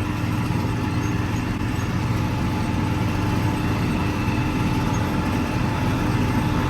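A vehicle engine running steadily, a constant drone with a low hum and a fainter higher tone and no change in speed.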